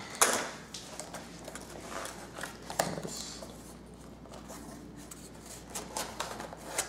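Cardboard box and packaging being handled and rummaged through, with rustling and scattered light knocks; the sharpest knock comes just after the start and another near three seconds in.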